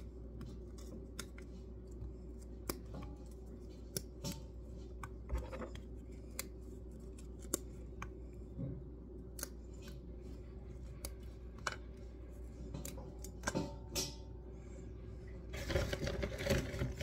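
Crunchy dog biscuits (apple-and-yogurt health bars) being snapped and crumbled by hand, with irregular sharp crackles and small pieces clicking into the bowls. There is a denser run of crackling near the end.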